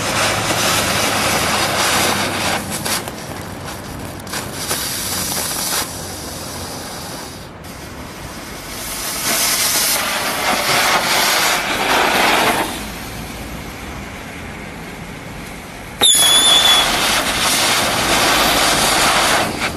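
Small novelty ground fireworks hissing as they burn and spray sparks, in several stretches of a few seconds each. A short shrill whistle starts sharply about sixteen seconds in.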